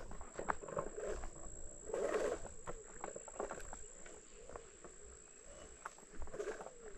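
Ninebot ES2 electric kick scooter riding uphill: irregular knocks and rattles from the scooter over the road surface, with a thin steady high whine underneath and a louder rush of noise about two seconds in.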